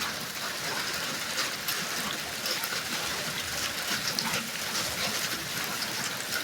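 Steady rain falling: an even hiss with many fine, scattered drop ticks.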